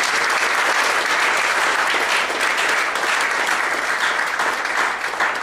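Audience applauding: a steady, sustained round of clapping from many hands.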